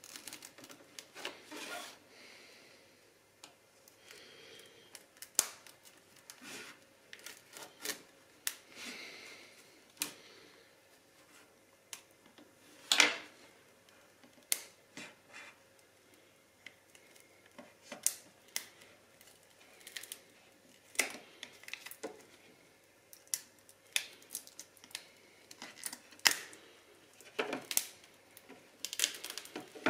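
Alcatel 3C smartphone's plastic case being pried open with a thin flat tool: irregular clicks and snaps as the clips give, with brief scraping and handling between them, the loudest snap about 13 seconds in.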